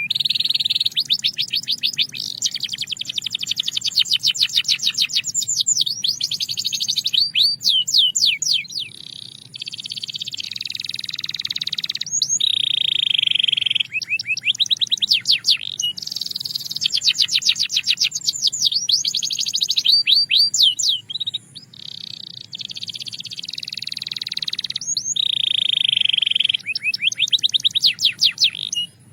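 Belgian canary singing a long continuous song: fast rolls of rapidly repeated notes alternate with steady held whistled tours, the phrase changing every second or two. Short pauses break it around a third of the way in and again about three quarters through, and it cuts off suddenly at the very end over a faint low hum.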